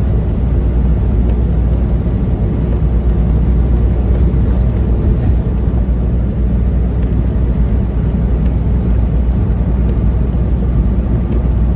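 Steady low drone of a semi-truck's engine and road noise, heard from inside the cab while driving.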